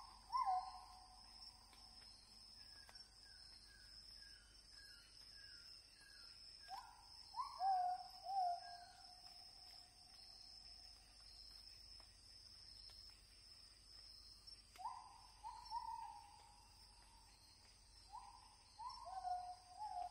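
A bird calling in groups of two or three short notes, each starting sharply and sliding a little downward, the groups several seconds apart. A quick run of about eight higher, fainter notes comes a few seconds in, over a steady high-pitched whine.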